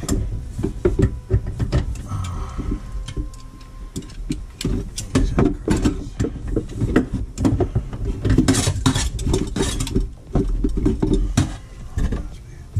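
Irregular metallic clinks, clicks and knocks of hand tools and braided stainless supply hoses being handled under a kitchen sink, over a low rumble of handling noise.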